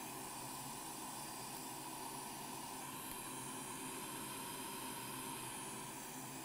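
Steady faint hiss of workbench background noise, even throughout with no clicks or beeps.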